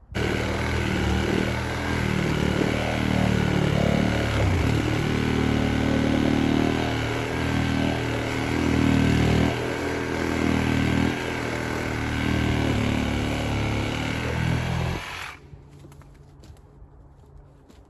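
Chainsaw running under load, cutting through the hive tree's trunk, its pitch dipping and rising as it bites; it stops sharply about fifteen seconds in.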